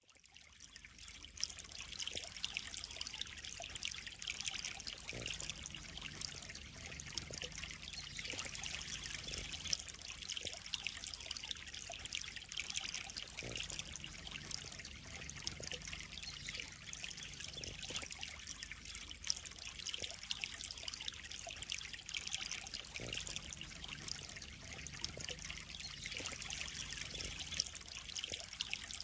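Water trickling and splashing steadily into a koi pond, a continuous bright splashing hiss that fades in over the first second or so.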